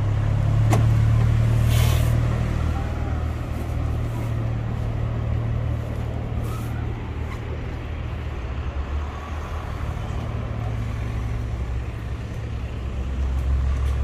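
Steady low rumble of a vehicle engine, with a sharp click about a second in.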